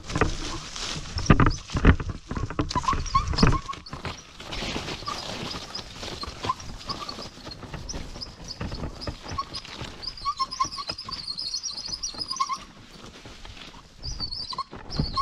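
Mountainboard wheels rolling and rattling over a wet dirt trail, with irregular knocks and thumps from bumps, loudest in the first few seconds. Short high chirping notes come and go above it, thickest about ten to twelve seconds in.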